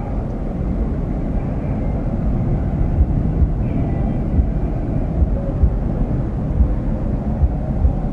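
Boeing 777-200ER's jet engines heard from afar on approach: a steady low rumble with a faint whine above it. Irregular low thumps of wind on the microphone come in from about three seconds in.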